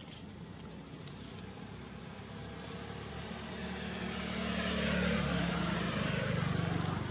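A motor vehicle engine running, growing louder from about halfway through as it draws near.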